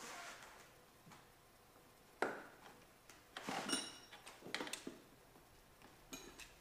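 Metal parts and hand tools clinking and knocking in a car's engine bay during hand work: a sharp knock about two seconds in, then a run of ringing metallic clinks a second later, and a few lighter clicks near the end.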